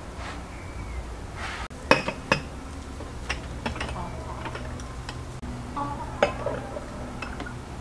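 Glass and china tableware clinking in a few sharp, ringing clinks: two loud ones close together about two seconds in, lighter ones after, and another near six seconds. A low, steady hum runs underneath.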